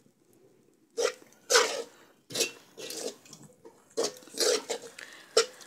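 Metal spoon scraping and stirring dry, sugared crumbs of fermented-flour snack in a round metal pan, in short uneven strokes that begin about a second in, with a faint ring from the pan.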